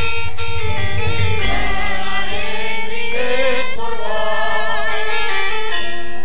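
Javanese gamelan ensemble playing, its bronze metallophones ringing in steady pitched notes, with a female sinden singing a wavering melody over it.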